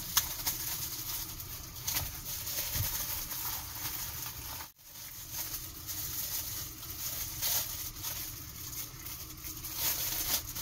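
Clear plastic wrapping crinkling and rustling as it is pulled off a new cabin air filter, with a run of small handling clicks; the sound briefly drops out about halfway through.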